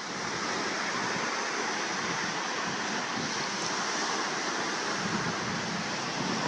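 Gulf surf breaking and washing onto a sandy beach, a steady hiss of waves.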